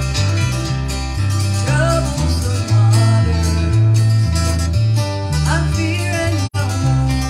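Live acoustic country-gospel music over a PA: strummed acoustic guitars over a steady bass line, with voices singing. The sound cuts out for an instant near the end.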